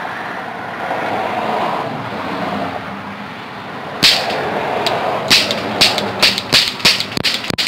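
Toy cap pistol firing powder caps: a sharp bang about four seconds in, then a quick, irregular string of loud cracks, several a second, after a few seconds of steady background noise.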